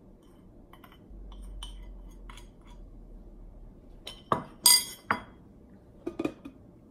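A spoon clinking against a small ceramic bowl and a glass blender jar as spices are scraped in: light taps at first, then a few sharp ringing clinks about four to five seconds in, the loudest near the middle of that run. Near the end, a couple of softer knocks as the blender lid is set on the jar.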